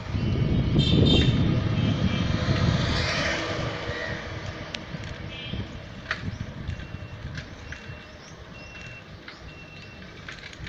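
Street traffic heard from a moving vehicle: a low rumble that is loudest in the first few seconds and then eases, a short horn honk about a second in, and a series of short evenly spaced beeps in the second half.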